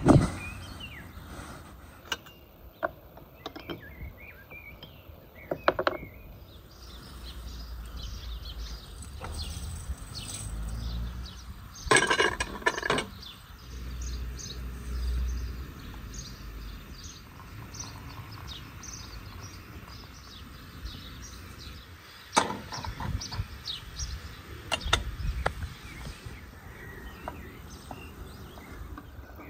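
Small birds chirping, with a heavy thump at the very start as a rolled carpet is laid open on grass, and scattered clicks and knocks of handling, densest about twelve seconds in.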